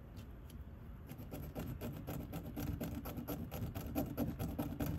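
A silver jewelry piece rubbed rapidly back and forth on a test stone, leaving a metal streak for a sterling acid test. The fast rubbing strokes begin about a second and a half in and grow louder.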